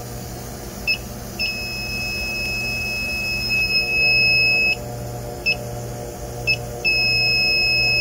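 Inficon TEK-Mate electronic refrigerant leak detector alarming: a few separate high beeps, then a long unbroken tone, twice over, with its HIGH light on, picking up refrigerant at a leaking suction service valve. A steady low machine hum runs underneath.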